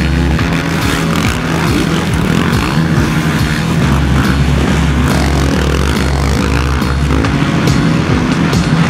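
Racing quad engines running and revving on a dirt track. A backing music track with a steady pulsing bass plays along with them.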